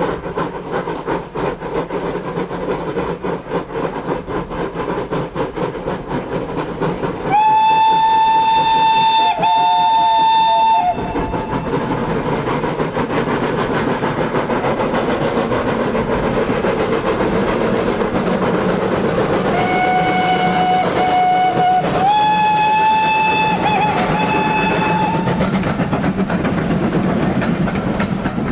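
Steam locomotive running fast with a rapid beat and sounding its steam whistle: one long blast about a quarter of the way in, then two more blasts, a lower one followed by a higher one, about two-thirds through. The train's rumble and wheel clatter continue underneath.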